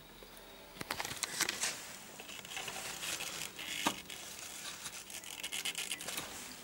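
Hands pulling and working a rubber hose loose among motorcycle engine parts: irregular rustling and scraping with scattered small clicks and a few sharper knocks.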